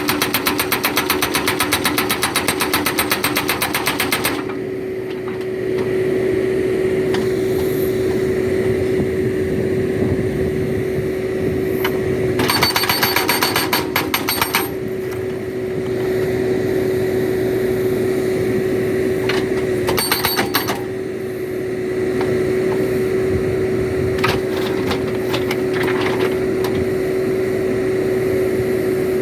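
Hydraulic rock breaker on a backhoe hammering in rapid, even blows that stop about four seconds in, with two more short bursts of hammering later on. Between the bursts the backhoe's engine runs steadily.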